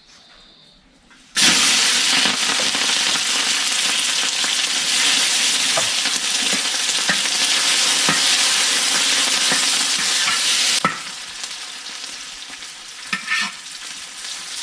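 Chili peppers going into hot oil in a cooking pot to flavour it: a sudden loud sizzle starts about a second and a half in and holds steady while a spatula stirs, then dies down to a softer frying a few seconds before the end.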